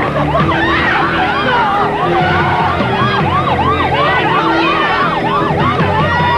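Emergency-vehicle siren in a fast yelp, rising and falling about three times a second. A second siren sounds higher in pitch.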